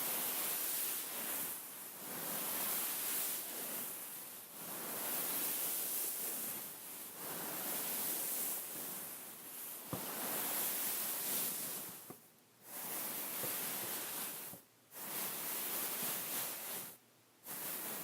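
Hands rubbing and scratching over a beaded pillow: a hissy rustle that swells and fades in strokes of a second or two, with a single click about ten seconds in and three short pauses near the end.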